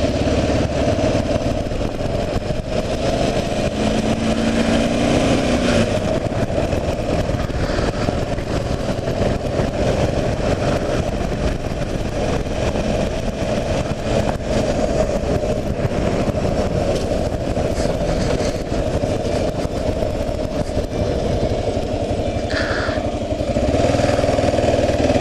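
Kawasaki KLR 650's single-cylinder engine running steadily as the motorcycle is ridden along.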